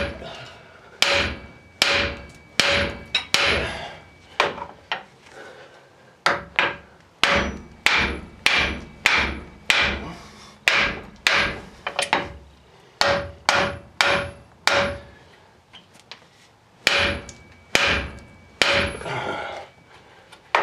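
A hammer repeatedly striking a front axle's steering knuckle, about one blow a second with a short pause near the middle, each hit leaving a metallic ring. The knuckle is stuck tight on its ball joints and is being pounded to break it loose.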